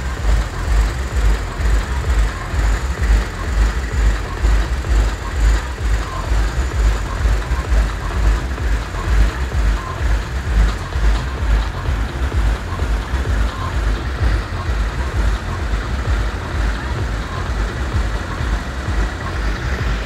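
A diesel farm tractor, by its green-and-yellow livery a John Deere, runs as it drives slowly past towing a trailer, under a loud, uneven low rumble.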